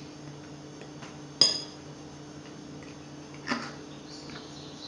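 Metal spoon stirring flour in a glass mixing bowl and clinking against the glass twice. The first clink, about a second and a half in, is the louder and rings briefly; the second, near three and a half seconds, is duller.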